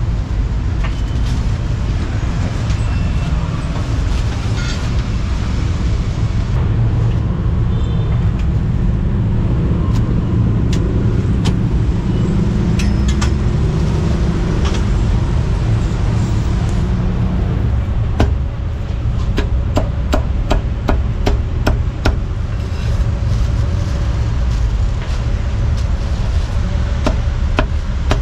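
Heavy steel cleaver chopping roast meat on a thick wooden chopping block: sharp knocks, a few at first, then a quick run of about three a second in the second half. Under them, a steady low rumble of street traffic.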